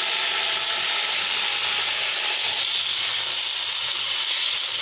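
Drained rice sizzling in hot oil with whole spices in a pan, a steady frying hiss as it is stirred with a silicone spatula.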